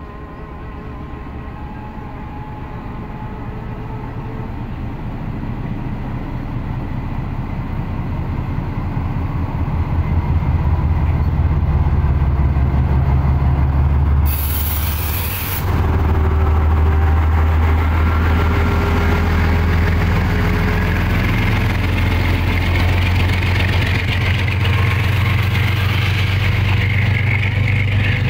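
GE U20C (GEU-20) diesel-electric locomotive accelerating through the station with a low engine drone, growing louder over about ten seconds as it comes close and passes. The passenger coaches then roll by on the rails, with a brief hiss about fourteen seconds in.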